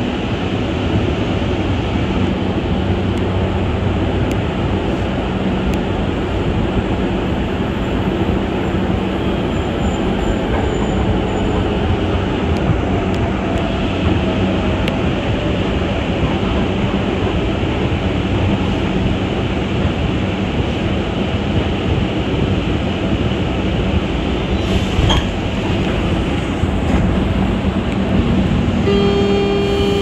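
Mexico City Metro Line 2 rubber-tyred train running, a dense steady rumble and rush of the ride heard from aboard. A steady pitched tone with overtones joins near the end.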